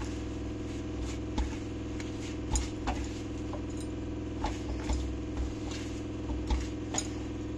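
Hand mixing dry millet flour in a steel bowl, with bangles knocking against the bowl in about ten light, scattered clinks. A steady low hum runs underneath.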